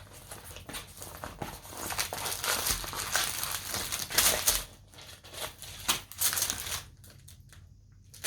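Packaging crinkling and rustling as a parcel is unwrapped by hand, busiest through the first half and loudest about four seconds in, then thinning out to a few scattered rustles.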